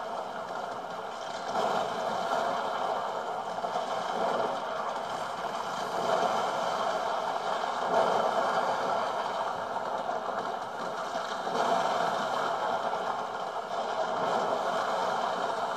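Game sound played through the MSI GS73VR laptop's built-in speakers: a steady rushing ambience with clattering and some louder swells, with little bass.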